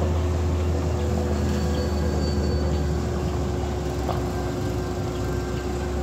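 Motor grader's diesel engine running with a steady low rumble as the machine drives away, fading slightly.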